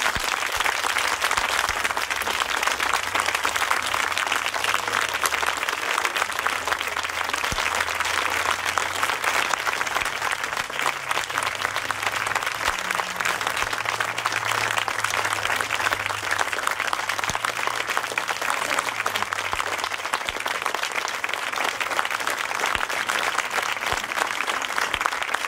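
Audience applauding steadily: sustained clapping from a large crowd at the close of a musical piece.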